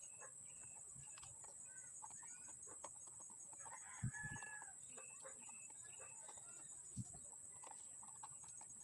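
Chickens clucking and calling faintly, over a steady high-pitched whine, with a short knock about four seconds in.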